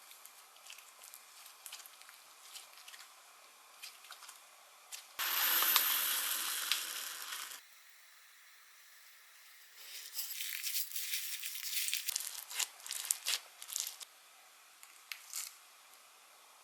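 Hands stretching and squishing slime: a loud tearing, crackling pull about five seconds in that lasts a couple of seconds, then a stretch of crinkly crackles a few seconds later.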